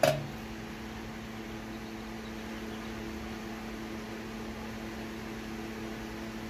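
A single knock at the start, a stainless exhaust mid-pipe set down on a bathroom scale, then a steady mechanical hum with a low held tone.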